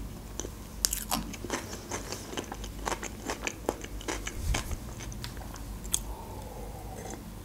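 Close-miked chewing of crunchy fresh vegetable salad (cucumber, tomato, red onion), with many sharp wet crunches in the first few seconds. It then goes quieter as she sips from a glass near the end.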